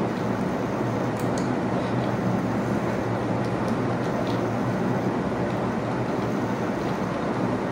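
Steady background hiss with a low hum under it, and a few faint computer keyboard clicks as code is typed.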